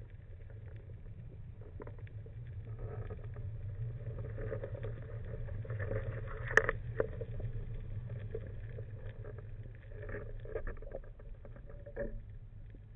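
Underwater sound muffled through a camera housing: a steady low rumble of water moving past, with scattered small clicks and knocks and one sharper click about six and a half seconds in.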